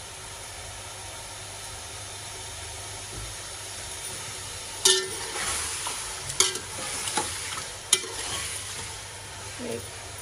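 Chicken pieces sizzling as they fry in hot oil in a large metal pot. From about five seconds in, a long metal slotted spoon stirs them, scraping and clicking sharply against the pot several times.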